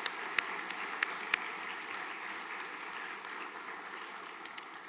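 Audience of students applauding, a dense steady clapping with a few sharp louder claps in the first second or so, slowly fading toward the end.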